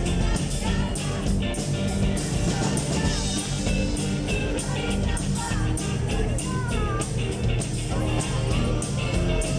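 Rock band playing live, with drums keeping a steady beat, guitar and a singing voice.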